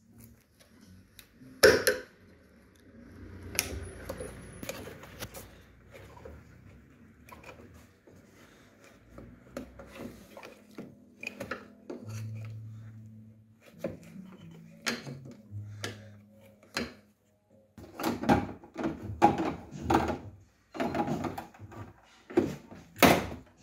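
Hand work on an Audi A3 8P's tailgate: irregular clicks and knocks of a screwdriver and the plastic interior trim being pried and handled, with one loud knock about two seconds in and a dense run of sharp clicks near the end as the trim panel is pulled loose.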